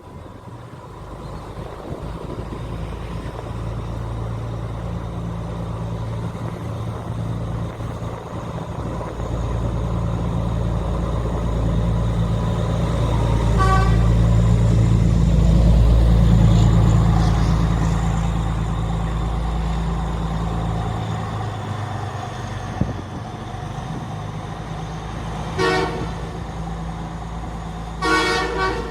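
Diesel train's engine growing louder, at its loudest about halfway through, then fading as the train passes. There is a short horn toot near the middle and two more near the end.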